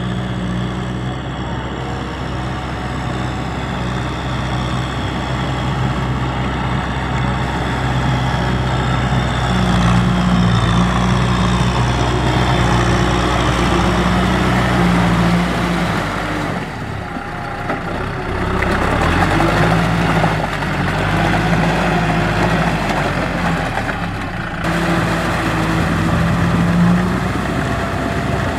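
Kubota M6040 tractor's diesel engine running steadily under load while the tractor tills a flooded rice paddy, its note dipping and shifting a little past the middle before steadying again.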